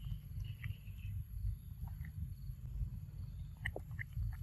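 Outdoor ambience: a steady low rumble with faint, short, high-pitched chirps of insects and birds, and a few soft clicks.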